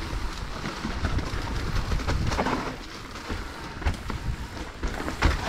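Mountain bike riding over a rough, slippery trail: tyres running on dirt and stones over a steady low rumble, with a few sharp knocks and rattles from the bike.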